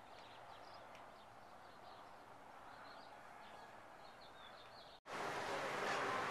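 Small birds chirping faintly over quiet outdoor ambience, with many short high chirps. About five seconds in, an abrupt cut brings a much louder steady rushing noise.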